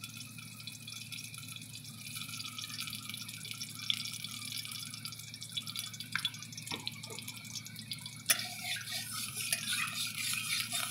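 A little cooking oil crackling as it heats in a steel kadai over a gas burner, the crackle growing denser partway through, with a sharp tap about eight seconds in and a spatula moving in the pan near the end.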